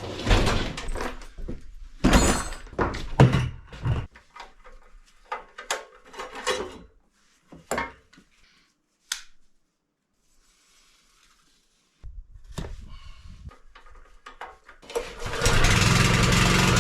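Scattered metal clunks and knocks from repair work on a plate compactor, then near the end a small engine, likely the compactor's, runs loudly and steadily.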